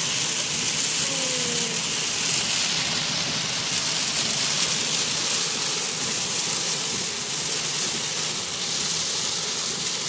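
Very heavy rain pouring down, a dense, steady hiss with no let-up.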